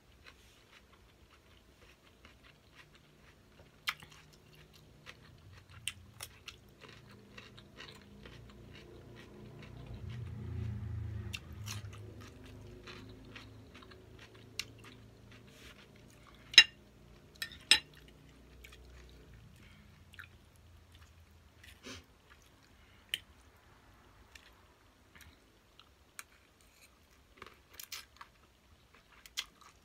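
Close-up chewing and crunching: bites of a raw cucumber stick and mouthfuls of glass noodle salad, with sharp crunches scattered throughout, the loudest two about sixteen and eighteen seconds in. A low hum swells briefly around ten to twelve seconds in.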